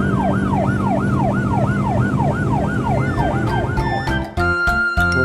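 Safety car's siren wailing in quick falling sweeps, about three a second, over a steady low hum. It stops about four seconds in, and music with a beat begins.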